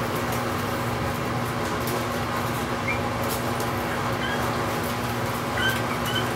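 Boston Terrier puppies giving a few brief high-pitched squeaks, starting about three seconds in and coming more often near the end, over a steady background hum.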